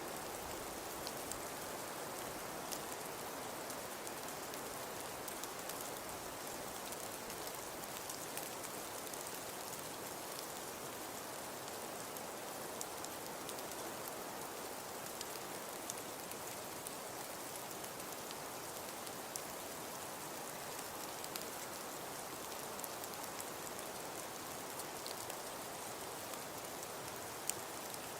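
Falling-snow ambience: a steady soft hiss with scattered faint ticks of flakes landing.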